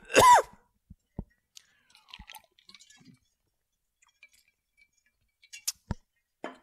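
A man coughs at the very start. Then come a few seconds of faint mouth clicks and small knocks close to the microphone.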